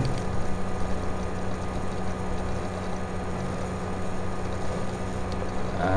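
Steady low hum with an even hiss of background noise, unchanging throughout, with no distinct events.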